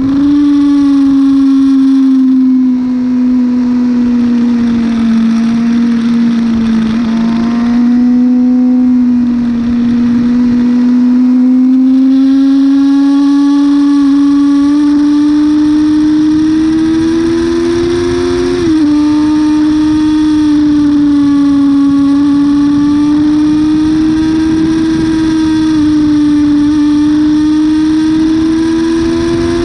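Yamaha R6 sportbike's inline-four engine running hard at high revs on track. Its pitch slowly sags and climbs through the corners, and drops sharply about two-thirds of the way through as it shifts up from second to third gear.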